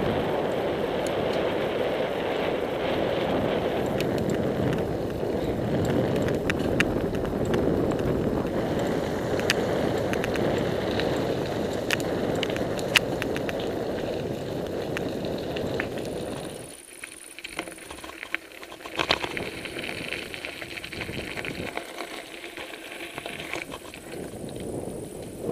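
Riding a bicycle on a paved country road: steady wind on the microphone and tyre rumble, with scattered sharp rattling clicks from the bike. About two-thirds of the way through it turns suddenly quieter.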